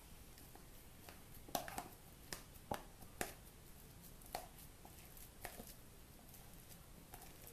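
A fork mashing ripe bananas into a purée by hand: faint, irregular clicks and taps as the fork works through the fruit.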